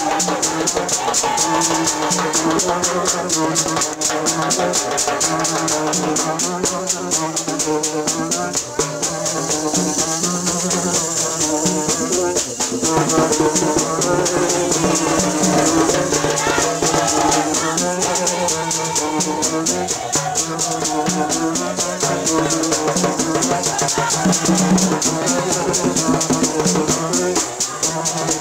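Haitian rara band playing: long metal horns (kònè) blowing repeated low riffs over a fast, steady shaker rattle and drums.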